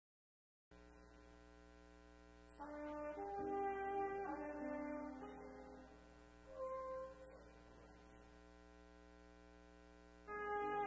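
Trumpet with piano playing a church prelude in slow phrases of held notes: one phrase begins about two and a half seconds in, a short one comes near the middle, and the next starts just before the end. A steady low hum fills the gaps between phrases.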